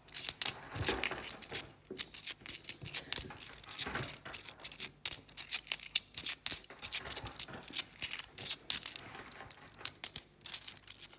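Cupronickel 50p coins clinking against each other as they are thumbed one by one off a stack held in the palm: a quick, irregular run of small, bright metallic clicks.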